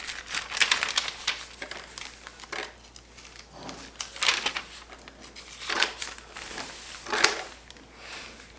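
Paper pages of a notebook being handled and turned, a series of short crinkly rustles.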